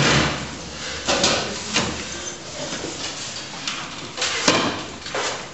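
Chairs scraping and knocking against desks as people pull them out and sit down, in several separate scrapes, the loudest about four and a half seconds in.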